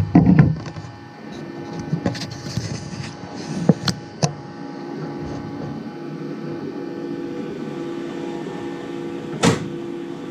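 Qidi X-Max 3D printer printing a test part: its stepper motors whine in steady tones that shift in pitch as the print head moves. A few knocks in the first second and a sharp click about nine seconds in.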